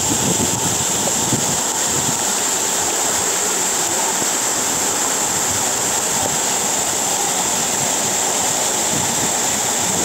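Madakaripura waterfall: a steady rush of water pouring down the cliffs and splashing onto the rocks and pool below, heard close up in its spray.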